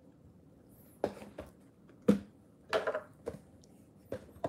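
Handling noise: about half a dozen light knocks and taps, scattered, as trading cards and a cardboard card box are moved about on a table.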